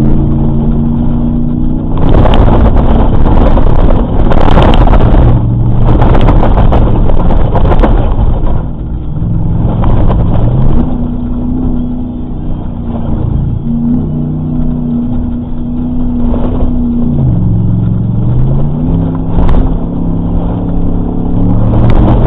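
Off-road vehicle's engine running under throttle, its pitch stepping up and down several times with gear changes and speed. It is overlaid by loud bangs and rattles of the vehicle going over rough ground, heaviest in the first several seconds.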